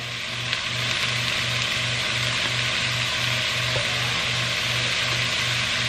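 Shredded chicken, carrots, celery and onion sizzling steadily as they sauté in a soup pot.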